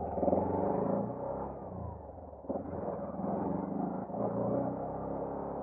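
Small engine of a three-wheeled auto-rickshaw tricycle running as it drives along, heard from inside the cab. The engine note eases off and picks up again about two and a half seconds in.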